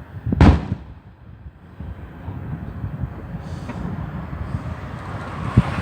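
Fireworks going off: a loud sharp bang about half a second in, a rising rush of noise from about two seconds on, and another sharp bang near the end.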